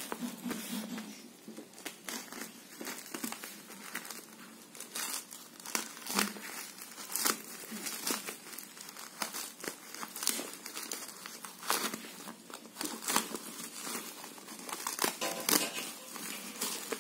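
Black plastic and bubble-wrap parcel packaging crinkling and tearing as hands pull and cut it open, in irregular crackles throughout.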